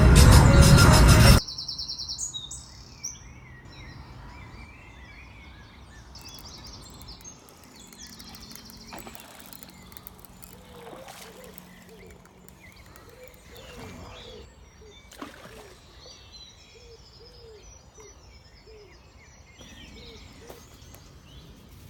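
Background music cuts off about a second in, leaving lakeside outdoor ambience with birds chirping and calling. In the second half a run of short, lower calls repeats about every half second.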